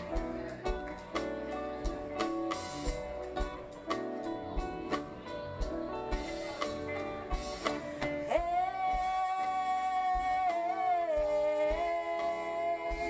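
Live band music of acoustic guitar, electric bass, keyboard and drums playing a steady beat. About eight seconds in, a woman's voice comes in on one long held note that drops a step in pitch near the end.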